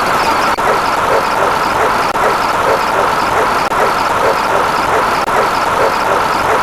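Dense, loud wash of many overlapping sound effects, with a faint pulse repeating about three times a second.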